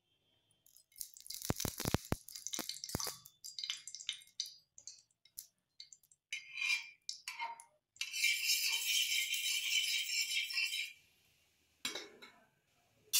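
A metal spatula clinking and tapping on an oiled iron tawa, a few strikes ringing briefly, then a steady high hiss for about three seconds.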